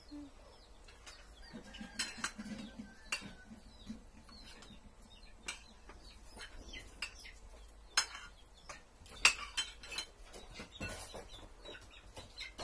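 Metal spoon and fork clinking and scraping on ceramic plates during a meal, in short irregular clicks, the sharpest a little after 8 and 9 seconds in.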